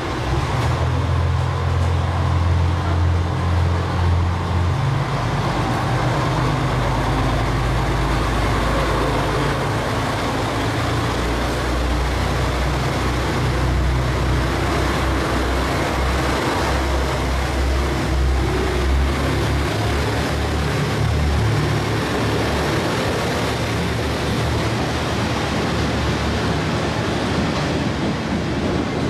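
JR Shikoku 2000 series diesel railcars pulling away from the platform, their diesel engines working under load. The low engine note shifts in steps as the train gathers speed, over the rushing noise of the train running past.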